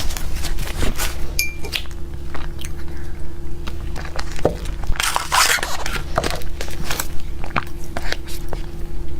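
Close-miked eating of a cake: repeated bites with crisp crunching and chewing, busiest about five seconds in, over a steady low hum.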